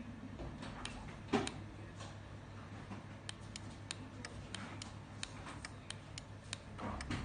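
Irregular series of sharp plastic clicks, several a second, with one louder knock about a second and a half in, from the buttons of an ATA PTX-5 garage door remote control being pressed, over a steady low hum.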